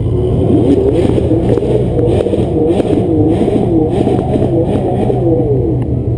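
Multirotor drone's motors whirring, many pitches wavering up and down together as it holds and turns in the air, over a steady low rumble.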